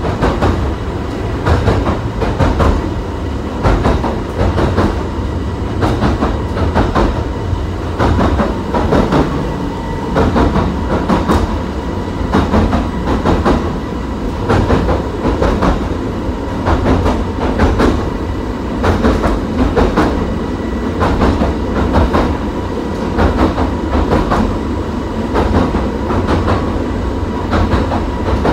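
Cabin ride noise of a Severn Lamb battery-electric pier train running along its track: a steady rumble of the wheels on the rails with frequent irregular clicks over the rail joints, and a faint steady high whine underneath.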